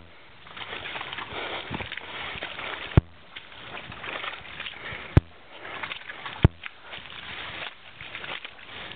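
Footsteps squelching and sloshing through deep, wet mud on a rain-soaked trail. Three sharp knocks cut through, about 3, 5 and 6.5 seconds in.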